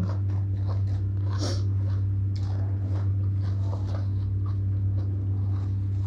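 Soft wet chewing and mouth smacks from someone eating spicy green papaya salad with a closed mouth, a few scattered clicks and squelches, over a steady low hum.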